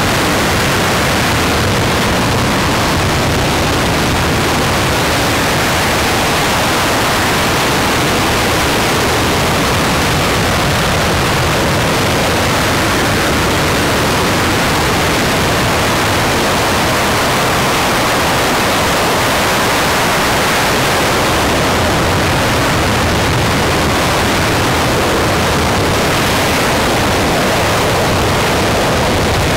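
RS-25 liquid-hydrogen/liquid-oxygen rocket engine, a former space shuttle main engine, firing on a test stand: a loud, constant rushing noise that holds the same level throughout.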